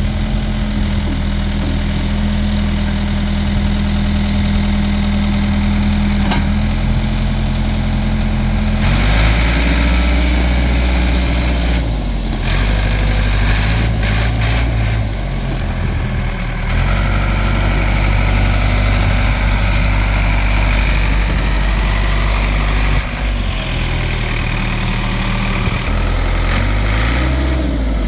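Ford 555C backhoe's four-cylinder diesel engine running. It is steady for about the first nine seconds, then the sound deepens and its pitch dips and recovers several times.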